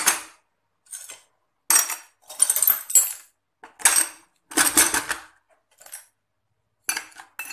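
Shards of broken glass dropped into a cut-open plastic water bottle, clinking and rattling in short bursts about once a second.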